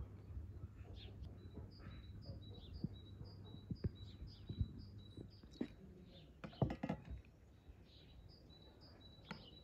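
Small songbird chirping: a steady run of short, high notes about two a second. Scattered soft knocks sound under it, with a brief cluster of sharp close clicks about two-thirds of the way through.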